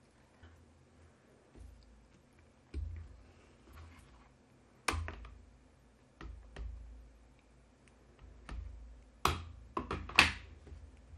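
Light clicks, taps and knocks from handling stamping supplies: a rubber stamp peeled off its sheet and pressed onto a clear acrylic block, with the block set down and picked up. The knocks are scattered and irregular, and the loudest cluster comes near the end.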